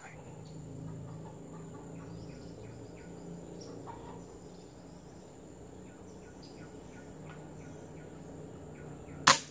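A single sharp rifle shot near the end, loud and sudden, fired through the scope at a squirrel in a tree. Before it, a low steady hum with faint insect and bird calls.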